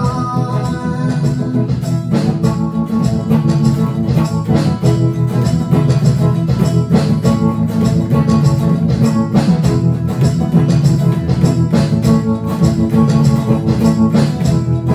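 Instrumental passage of a rock song: electric guitar played over sustained chords with a steady beat.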